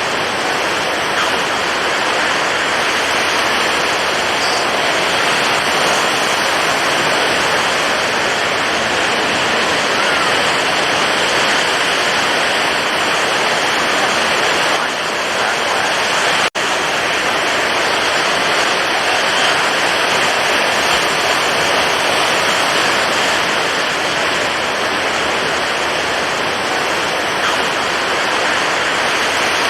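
Stormy ocean surf: breaking waves make a steady, dense rush of water noise, with a split-second dropout about halfway through.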